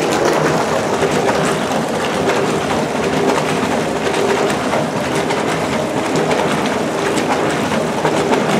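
Velo semi-automatic top-loading washing machine pre-washing at 30 degrees: the drum tumbles with the lid open, and a large amount of water sloshes and splashes around inside it steadily.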